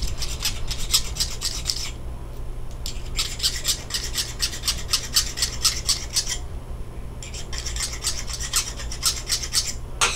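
A metal file rasping across a steel hobbed bolt in rapid strokes, about four a second, in three runs with short pauses between them, deburring the freshly cut hobbing. A sharp click comes at the very end.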